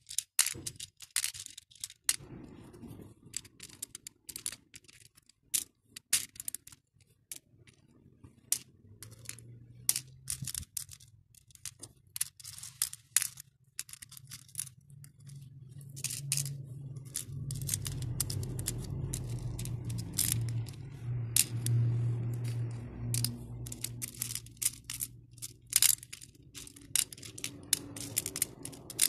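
Acrylic and metal beads clicking against each other and against clear plastic compartment trays as they are picked out and dropped by hand, in quick irregular clicks. A low hum comes up underneath through the second half and drops away near the end.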